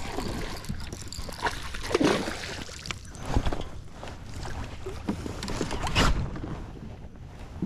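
Water sloshing and splashing around a fishing kayak, with irregular knocks and thumps against the hull; the loudest come about two, three and a half and six seconds in.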